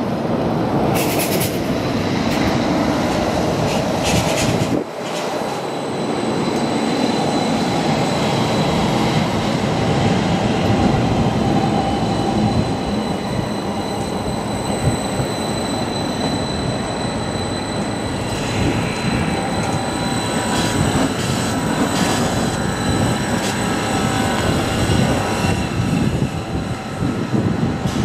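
Edinburgh tram (CAF Urbos 3 light rail vehicle) running past at close range on street track: a steady rumble with a thin, steady high-pitched tone through the middle stretch.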